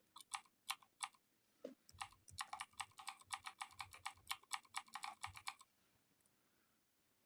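Simulated mechanical-keyboard keystroke clicks from the Mechvibes app, triggered by typing: three single keystrokes, then a quick run of rapid typing for about three and a half seconds.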